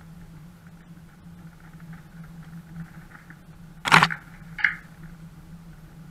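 A 4x4's engine running steadily at crawling pace. About four seconds in there is a loud sharp knock as the vehicle and camera jolt, then a shorter, higher knock half a second later.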